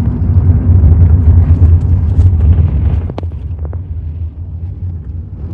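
Steady low rumble of a car on the move, easing off a little in the second half, with a few light clicks about three seconds in.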